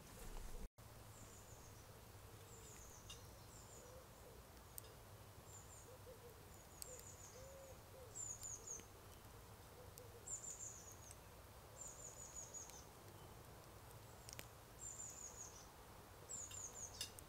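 Faint woodland birdsong: a small bird repeating quick groups of short, high, falling chirps every second or two, with a few soft, low hooting notes beneath. A few faint clicks are also heard.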